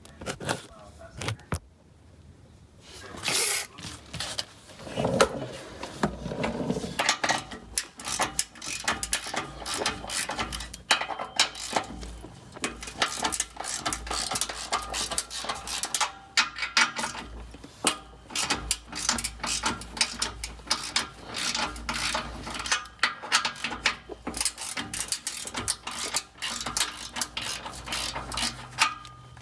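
Socket ratchet clicking in rapid runs, with metal knocks, as 15 mm nuts on the exhaust pipe clamps are worked loose.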